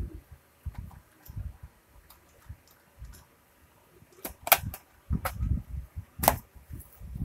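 Irregular short dull knocks, with a few sharp clicks about four seconds in and again near six seconds.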